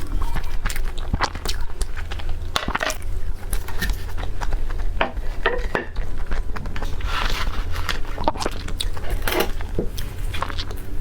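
Close-miked eating: irregular biting and chewing with sharp crunchy clicks, over a steady low hum.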